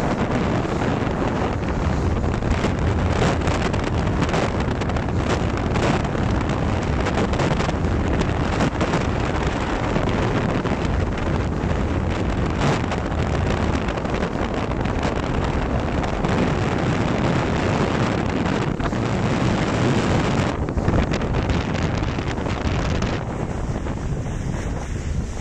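Wind buffeting the microphone over the rush and splash of water along the hull of a Grand Soleil 39 sailing yacht heeled under sail. The noise is steady and low-heavy. A little before the end it thins in its upper range.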